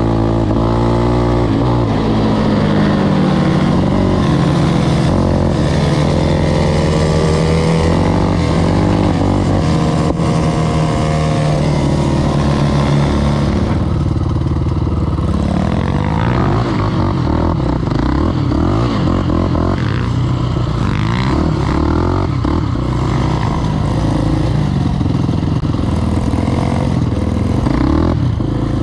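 KTM 525 XC quad's single-cylinder four-stroke engine running under way, heard from the rider's seat. It holds a fairly steady pitch for the first dozen seconds, then the revs rise and fall unevenly from about the middle onward.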